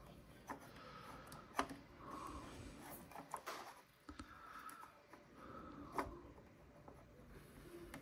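Faint handling noise of a small plastic figure and its string being worked by hand: soft rustling with a few scattered light clicks and taps, the sharpest about a second and a half in and again near six seconds.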